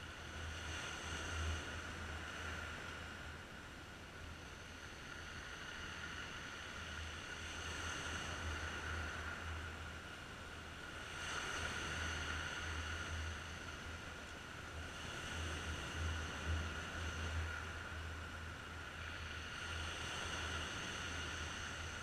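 Sea waves breaking and washing over a rocky shore, the surf swelling and easing every few seconds.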